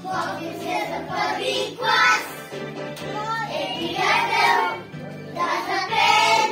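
A group of young children singing a song together in unison, phrase after phrase.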